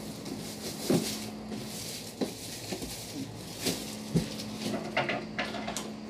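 Plastic packing straps being worked loose and slipped off a cardboard box by hand: scattered rustling and scraping with a few short sharp clicks and taps.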